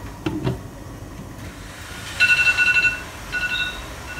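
A glass pan lid set down on a steaming pan, knocking twice, then the loudest part: a high electronic beeping in rapid pulses, in one long burst and then shorter ones, typical of a kitchen timer going off at the end of the 8-minute steaming time.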